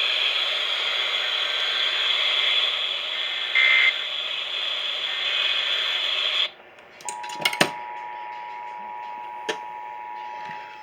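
Steady radio hiss that cuts off about six and a half seconds in with a few clicks. Then the Emergency Alert System attention signal starts: a steady two-tone beep (853 and 960 Hz) that announces an alert.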